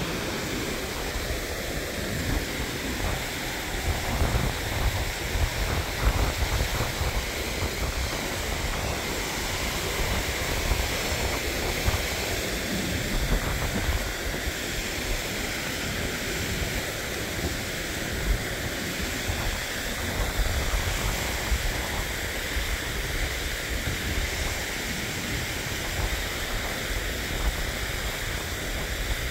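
Mountain stream cascading over boulders: a steady rush of falling water, with wind rumbling on the microphone in gusts.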